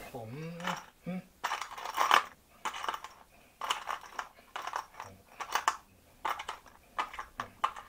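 Small handmade steel engine valves being set down one after another on a cloth-covered bench, giving about a dozen irregularly spaced metallic clicks and clinks.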